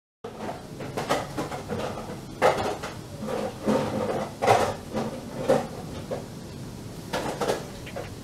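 Kitchen clatter: irregular knocks, as of plastic containers and utensils being handled and set down.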